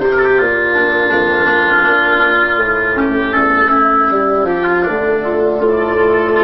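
Live chamber music from a wind ensemble, flute and French horn among them, playing held, overlapping notes that change pitch every second or so.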